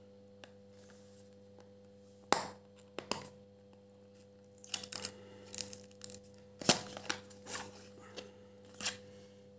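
Small cardboard product box being handled and opened by hand: a few sharp snaps and taps of the card, about four in all, with rustling and scraping in between.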